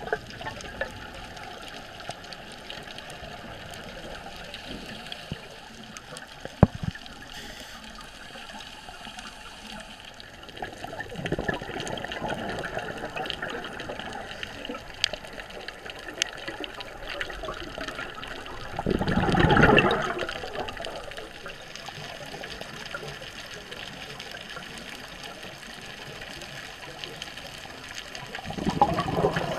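Scuba diver's exhaled bubbles rushing from the regulator in three swells, the loudest a little past the middle, over a steady underwater hiss. A single sharp click sounds about a quarter of the way in.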